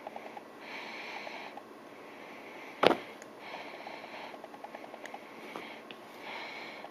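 A cat pouncing after a laser dot on a fabric couch: one sharp thump about three seconds in, over faint clicking and soft sniff-like breaths about every three seconds.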